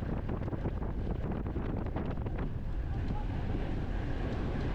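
Wind buffeting the microphone of a camera on a road bike racing at speed: a steady rushing with a deep rumble.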